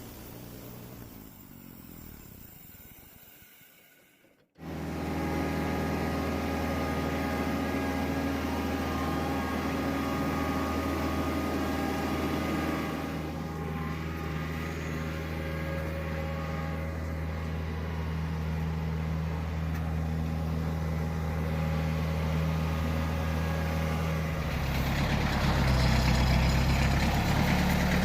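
An engine comes in suddenly about four seconds in and runs steadily, growing louder and busier near the end.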